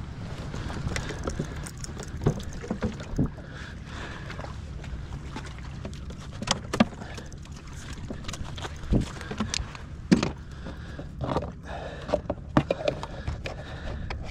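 Irregular knocks and clunks of fishing gear being handled aboard a kayak, over a steady low rumble.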